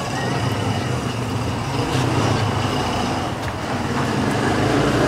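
Street traffic: a motor vehicle engine running with a steady low hum, growing slowly louder.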